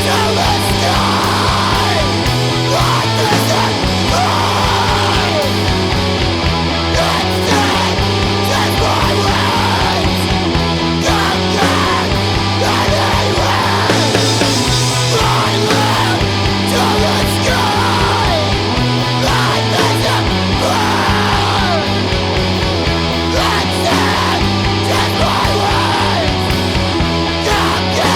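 Loud, dense rock music with heavy guitars and shifting bass notes, and shouted vocals over it.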